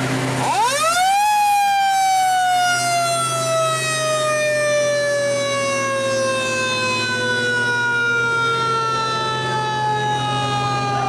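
Fire truck siren winding up sharply about half a second in, then slowly sliding down in pitch as it winds down. A steady low engine hum runs underneath.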